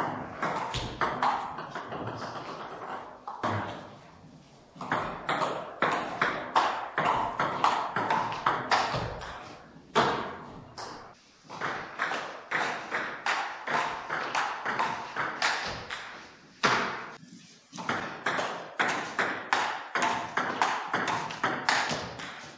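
Table tennis rallies: the ball clicking sharply off the paddles and the table in quick alternation, about two to three hits a second. There are brief breaks between points.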